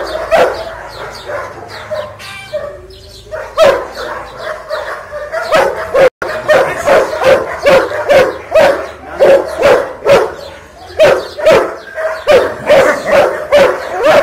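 German Shepherd barking over and over at a helper waving a stick, the aggressive warning barking drawn out in protection training. The barks come irregularly at first, then settle into a steady run of about two a second.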